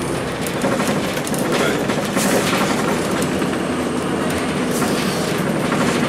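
A 2002 Blue Bird CS transit bus under way, heard from inside: the Cummins ISC diesel drones under steady road noise, with an irregular clatter of rattles from the body and fittings.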